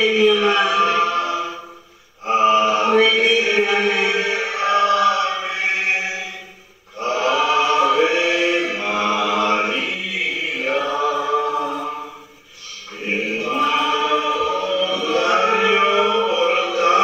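A choir singing a closing hymn, in phrases of about four to five seconds with three short breaks between them.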